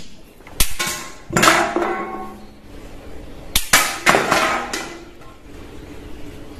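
A few sharp clicks and knocks, the louder ones each followed by a ringing metallic clatter that fades over about a second: a toy Spider-Man web-shooter glove firing and its darts knocking drink cans over.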